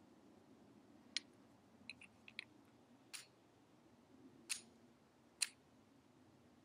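Faint, sharp clicks over near silence: one about a second in, a quick cluster of small ticks, then three more about a second apart.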